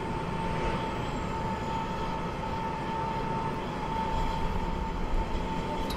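Steady drone of a tower crane hoisting a 25-ton steel column section, a constant whine over a noisy rumble.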